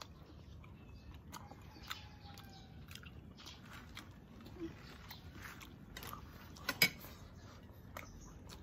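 A person chewing and biting food close to the microphone: a run of small wet mouth clicks, with one sharper click about seven seconds in.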